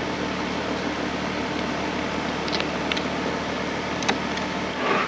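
Steady mechanical hum over an even noise, with a few faint ticks of a fillet knife working along the fish's backbone.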